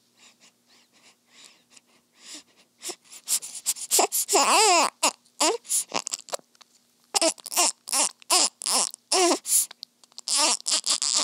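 Newborn baby sucking on a pacifier in her sleep: soft, rhythmic sucking clicks at first. From about three seconds in, the sucking grows loud and quick, mixed with short whimpering cries that rise and fall in pitch.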